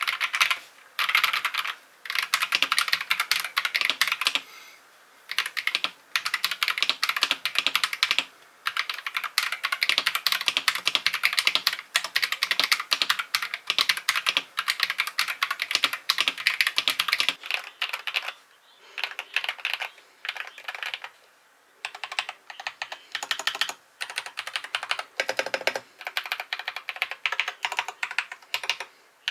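Modded TM680 mechanical keyboard with Akko switches, PE foam and tape mod, typed on in fast bursts with short pauses. The keystrokes have a clacky, poppy sound.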